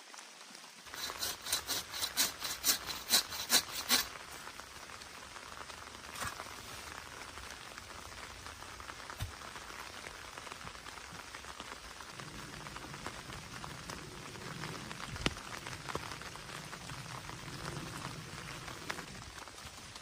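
Steady heavy rain hissing through the forest. About a second in comes a quick run of about ten sharp knocks, roughly three a second, lasting about three seconds.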